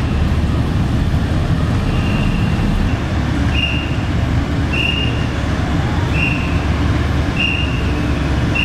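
Large truck reversing with its diesel engine running as a steady low rumble, and a short high-pitched reversing beep repeating about once a second from about two seconds in.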